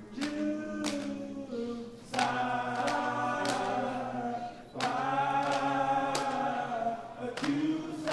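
Several voices chanting in unison a cappella, in long held phrases, three in a row. Sharp percussive hits, such as claps or stomps, mark a beat under the chant.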